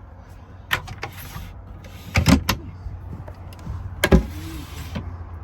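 Cupboard doors and catches in a VW California camper's kitchen units being opened and shut: a few sharp clicks and knocks, loudest about two seconds in and again about four seconds in, with short scraping sounds between them. A steady low hum runs underneath.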